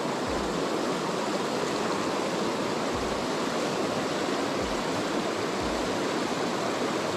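Klamath River water rushing steadily, an even noise that stays at one level throughout, with a few dull low thumps under it.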